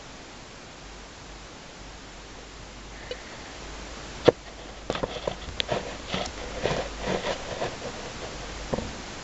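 Steady hiss from the camera microphone. About four seconds in comes a sharp knock, then about three seconds of knocks, clicks and rustling as the camera is jostled and shifted in its position.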